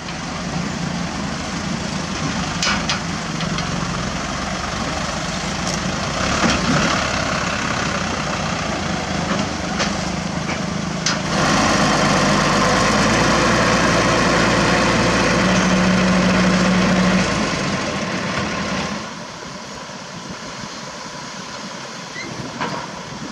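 Diesel truck engines running steadily, several trucks in turn. The engine sound grows louder and fuller about halfway through, drops back down for the last few seconds, with a few sharp clicks in the first half.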